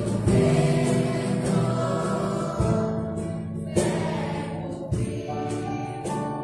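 Children's choir singing a worship song with a small church band of piano, drums, bass and guitar; sharp drum or cymbal hits land near the start and about four seconds in.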